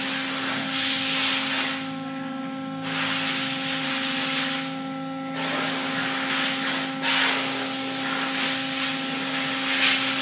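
Hydraulic pressure unit running with a steady hum and a rushing hiss. The hiss drops out briefly twice. Pressure is building on blowout-preventer rams that have stalled against the pipe before shearing it.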